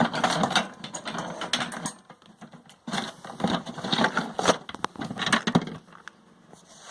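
Rattling and clattering of the metal frame and loose parts of an old homemade sand muller as it is handled, in irregular bursts of knocks with a short lull about two seconds in.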